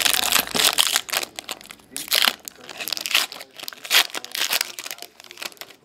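Foil trading-card pack wrapper being torn open and crinkled by hand, in irregular bursts of rustling crackle.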